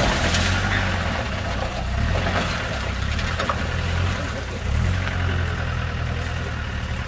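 Lifted 4x4's engine running under load, revving up several times as it labours through a muddy water-filled rut, with water and mud splashing around the tyres.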